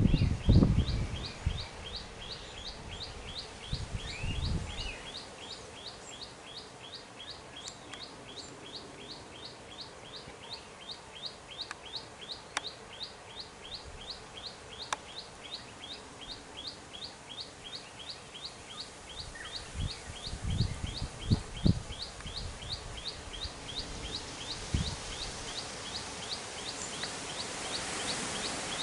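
Outdoor ambience: a high chirp repeated steadily, about three to four times a second, with a few low thuds and rumbles now and then, loudest just after the start and about twenty seconds in.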